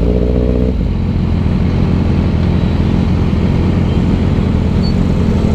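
Yamaha sport motorcycle's engine idling steadily in slow stop-and-go traffic. A second, higher-pitched engine drone is heard alongside for about the first second, then stops.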